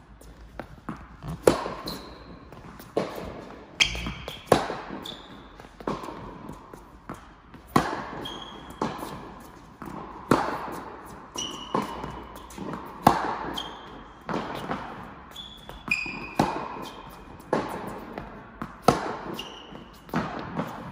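Tennis balls struck by rackets and bouncing on an indoor court during a baseline rally, a sharp hit about every second or so, echoing in the hall, with short squeaks of shoes on the court surface between strokes.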